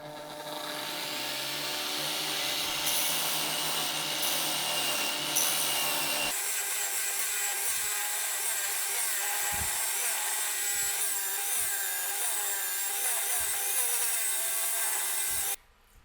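A power tool working wood, running steadily. Its sound changes abruptly about six seconds in, then stops suddenly near the end.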